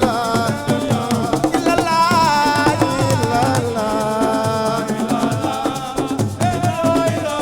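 Senegalese assiko music: a wavering melodic line rises and falls over dense, fast percussion.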